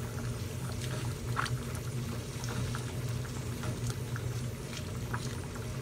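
Braised pork-leg broth simmering in a stainless steel pot, bubbling steadily over a low steady hum, with a few light clicks of a ladle against the pot as leaves are pushed in.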